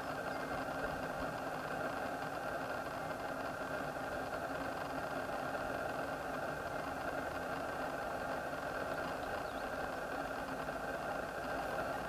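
Car engine idling: a steady, unchanging hum.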